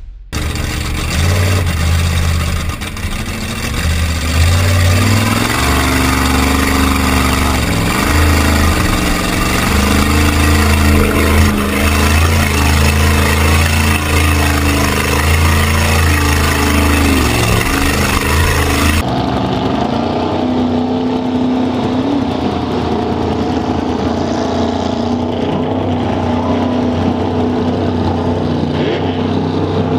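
Big-block Ford Bronco mud truck's V8 engine running hard and revving as it churns through deep mud and water, with splashing and spray. About two-thirds of the way in the sound changes abruptly from a dense, noisy close-up to a clearer engine note.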